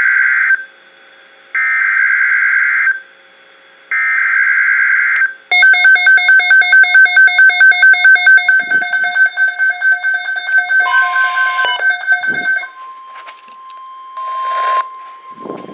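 Emergency Alert System weather alert on NOAA Weather Radio. It opens with three short bursts of screeching digital SAME header data, about a second apart. A loud pulsing electronic alarm beep follows at about four beeps a second, and near the end a steady single-pitch attention tone takes over.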